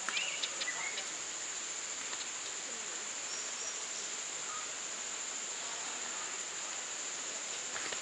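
Steady, high-pitched drone of insects in the forest, with a few brief bird chirps near the start.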